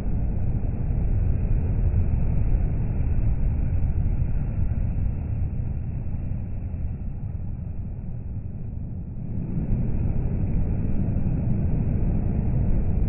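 DAF XF articulated lorries passing close by on a motorway: a deep, steady rumble of diesel engine and tyres. It drops off a little past the middle and builds again as the next lorry approaches.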